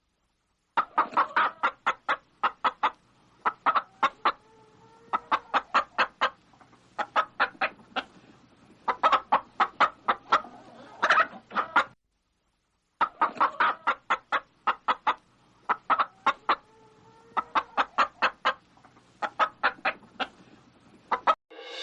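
Hen clucking: runs of short, quick clucks, several a second, broken by brief pauses. It stops for about a second midway, then the clucking starts again.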